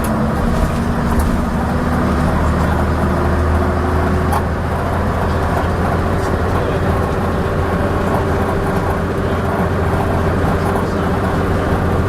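Leyland Atlantean double-decker bus's diesel engine heard from on board, pulling at steady revs while under way. There are a few sharp clanks and rattles over it, one clearest about four seconds in.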